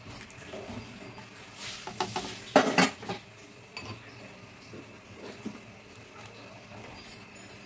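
A ladle stirring thick rice porridge in a metal pot, scraping and knocking against the pot, with a cluster of loud knocks about two and a half seconds in; after that only faint scattered ticks.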